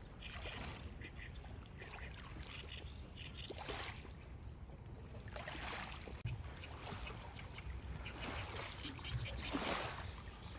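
Small waves lapping at a lakeshore in soft swells every second or two, with faint bird chirps in the first few seconds.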